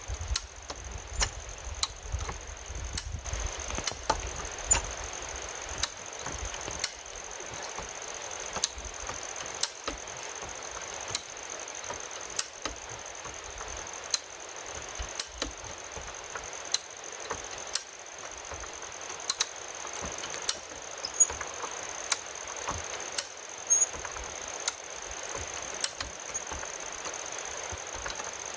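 Sharp mechanical clicks and knocks repeating irregularly, about one every half second to a second, over a steady high-pitched whine.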